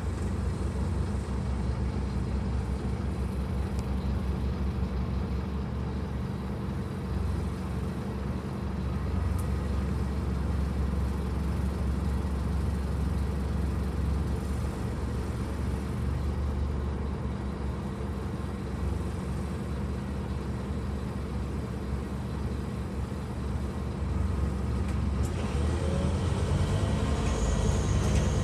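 Scania N230UD OmniCity double-decker bus's diesel engine and road noise, heard from the upper deck as a steady low hum. Near the end it gets louder and rises in pitch as the engine speeds up.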